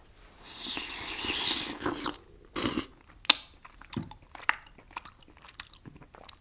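A person chewing a thick mouthful of canned chicken and dumplings right up against the microphone. A stretch of hissing noise comes first, then scattered smacks and clicks, with one sharp click about halfway through.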